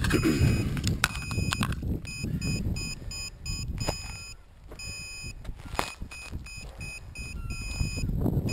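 An electronic beeper sounding a repeating pattern of short, high, steady beeps. Rustling and a few sharp knocks run underneath.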